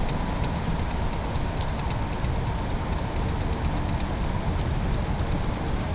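Steady rushing hiss of wind and water around a moving boat, with a low rumble underneath.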